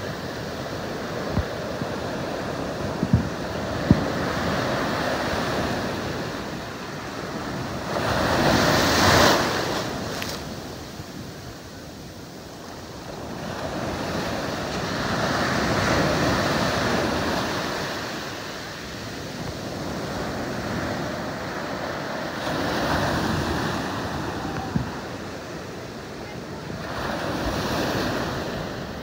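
Ocean surf breaking and washing up the sand at the water's edge, swelling and fading every five to seven seconds, loudest about nine seconds in. Wind buffets the microphone.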